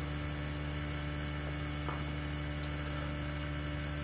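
Steady electrical mains hum with a constant hiss underneath, and a faint click about two seconds in.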